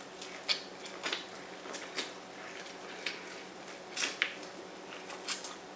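Boiled corn on the cob being bitten and chewed close to the microphone: small irregular crunches and wet mouth clicks, roughly one a second, over a faint steady hum.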